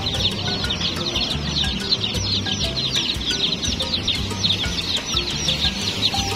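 A crowd of baby chicks peeping nonstop, a dense overlapping stream of short, high, downward-sliding peeps.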